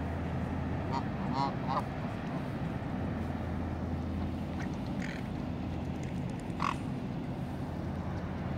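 Ducks and geese calling: a quick run of short calls about a second in, then a few single calls later, over a steady low hum.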